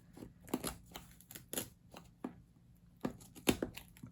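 Irregular sharp clicks and taps from paper and an old book's binding being handled and cut, about two a second.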